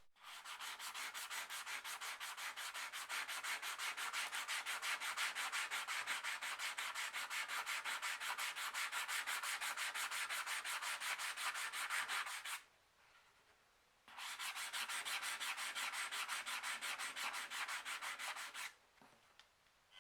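Fast, even back-and-forth hand sanding strokes, a rapid scratchy rubbing that runs for about twelve seconds, stops for a second and a half, then goes on for about four more.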